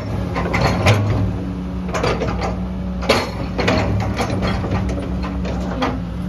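Caterpillar 315D excavator running steadily on its diesel engine, with irregular sharp metallic clanks and clicks from the working machine.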